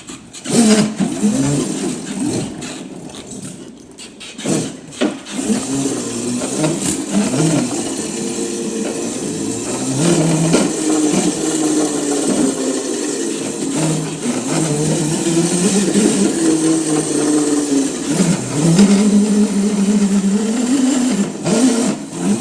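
Razor Crazy Cart XL electric drift kart's motor whining as it is ridden on the newly changed front tire, the pitch rising and falling with speed.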